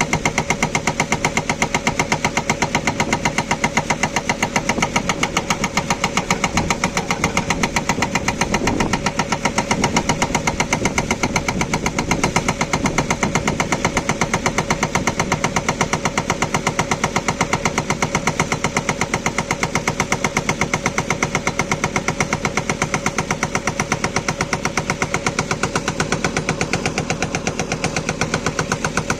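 Hydraulic rock breaker on a JCB 3DX backhoe loader hammering hard stone in a rapid, steady stream of blows, with the backhoe's diesel engine running under load.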